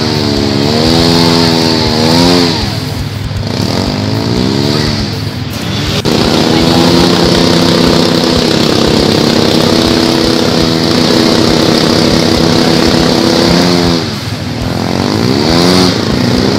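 Side-by-side UTV engine revving as the machine spins its tyres in deep mud: a few surges up and down, then about six seconds in it jumps to high revs held steady for several seconds, drops off, and revs up again near the end.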